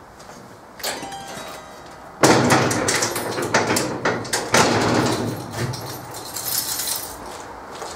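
Heavy steel door rattling and clanking as it is handled, with a run of metallic knocks and scraping from about two seconds in.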